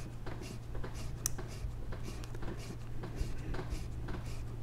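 Black adjustment knob being turned by hand as it is screwed down tight onto a brass pressure washer unloader valve: faint rubbing and clicking, about twice a second, over a steady low hum.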